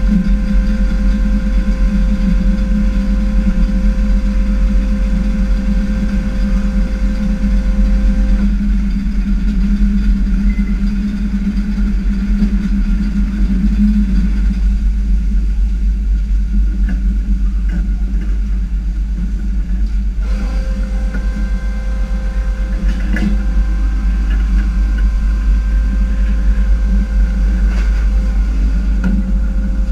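Fishing boat's engine running steadily while under way, a constant deep rumble with a steady hum. A higher whine fades out about eight seconds in and comes back about twenty seconds in.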